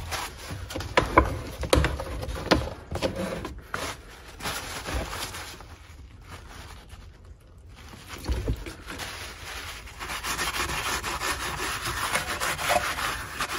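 A cloth soaked in white spirit rubbed over the bared pad base of a floor-sanding edger, wiping off old Velcro adhesive, with a few knocks from handling in the first seconds. The rubbing becomes fast and steady near the end.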